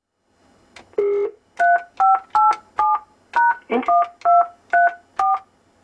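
Telephone touch-tone keypad being dialled: a short low beep about a second in, then a run of about nine two-tone keypad beeps, roughly two a second.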